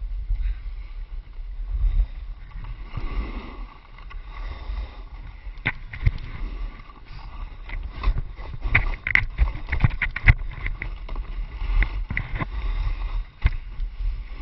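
Wind buffeting an action camera's microphone while a snowboard slides and scrapes over hard, wind-packed snow, with a run of sharp clicks and knocks as the board crosses the ridged crust in the middle of the run.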